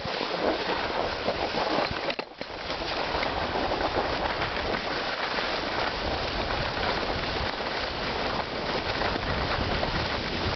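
Skis sliding and scraping over packed, chopped-up snow at speed, a steady hiss with wind buffeting the microphone. The noise drops out briefly about two seconds in.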